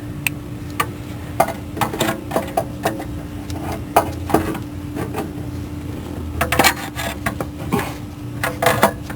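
Irregular metallic clinks and knocks of metal parts and tools being handled and fitted during a starter replacement, over a steady low hum.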